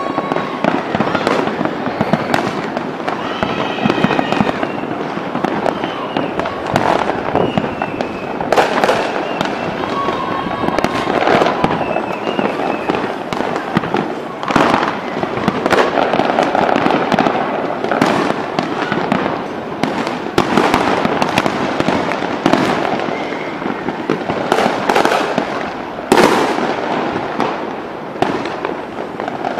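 Fireworks display: aerial shells bursting in a dense, continuous barrage, bang after bang over a crackling wash, with one sharper bang near the end.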